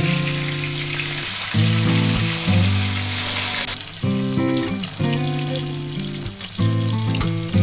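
Rohu fish pieces frying in hot oil in a steel kadai: a steady sizzle that drops away sharply about three and a half seconds in. Background music with held notes plays over it.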